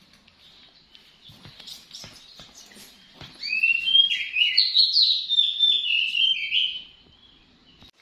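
A bird chirping rapidly, a dense run of short, high chirps about three seconds in that stops near the end, after some faint clicks and rustling.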